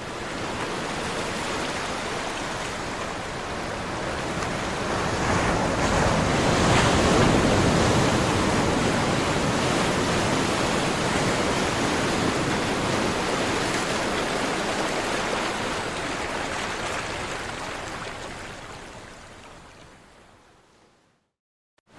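Sea surf: a wave washing in, swelling to its loudest about seven seconds in, then slowly fading away to near silence just before the end.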